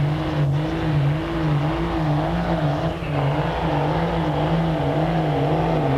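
Dodge Ram pickup's Cummins diesel engine running hard under load as it pulls the sled, its pitch wavering up and down about twice a second.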